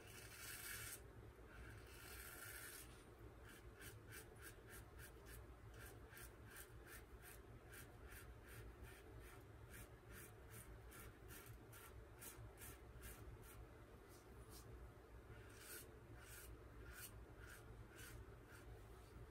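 Faint scraping of a GEM Micromatic single-edge safety razor with a GEM Professional blade cutting through lather and stubble in short, quick strokes, about three a second, after two longer strokes at the start.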